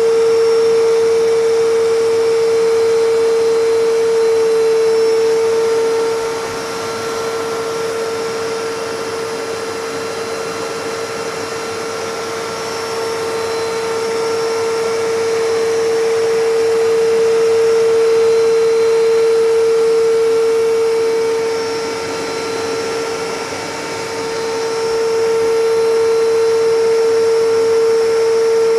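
Vacuum cleaner motor running steadily, a loud whirring hum with a strong steady whine over a rush of air. It grows somewhat quieter about six seconds in and again near the three-quarter mark, then comes back up.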